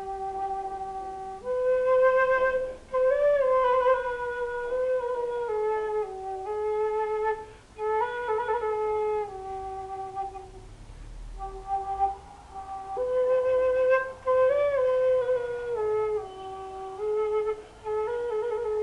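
Solo quena (Andean notched end-blown flute) playing a slow improvised melody. It holds a low note, leaps up and descends step by step with vibrato and small slides, softens about ten seconds in, then plays a similar phrase again.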